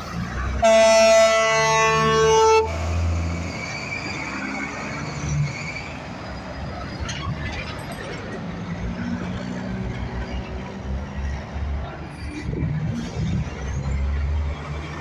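Semi-truck air horn blown in one long blast of about two seconds, several tones sounding together. Big-rig diesel engines run under it and afterwards as the trucks pull past, with a low engine rumble building near the end.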